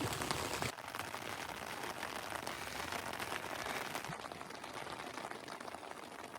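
Rain pattering steadily, a fine dense hiss of drops with a slight change about a second in.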